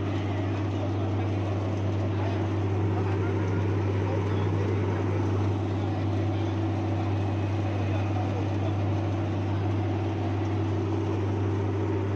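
Three-phase electric coconut coir shredder running steadily: a constant deep electric-motor hum under an even rushing noise from the spinning shredder drum as it turns coconut husks into fibre.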